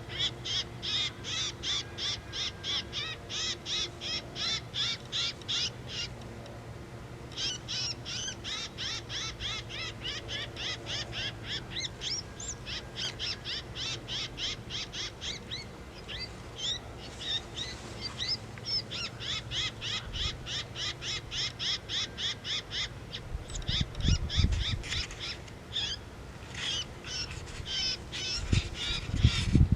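A FoxPro X-24 electronic predator caller playing a prey distress call: high squeals repeated about four times a second in long runs, with short breaks such as one about six seconds in. A few low bumps sound near the end.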